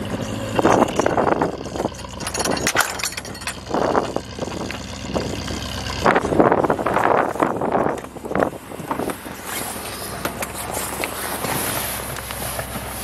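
Rover P6 estate's engine idling steadily, under irregular bursts of rustling and handling noise as the car is walked round and climbed into.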